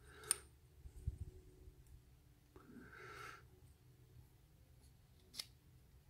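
Quiet metal clicks and light rubbing from a brass Euro cylinder lock's plug being pushed out of its housing with a follower tube. A sharp click comes about a third of a second in and another near the end, with a soft rub around the middle.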